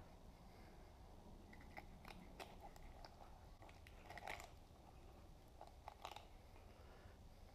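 Faint crunches and clicks of a knife cutting through a white sucker's scaly, bony body on a wooden cutting board.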